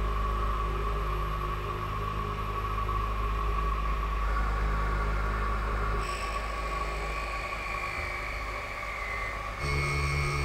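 Doosan NHM 6300 horizontal machining center roughing cast iron with a long-reach Kennametal KOR 6 end mill: a steady hum and whine from the spindle and the cut. The tones shift abruptly about six seconds in and again near the end.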